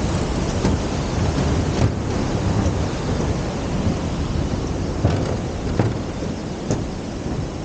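Wind buffeting the microphone of a handheld 360° camera, a dense rumbling noise that rises and falls. A few sharp knocks come about five to seven seconds in.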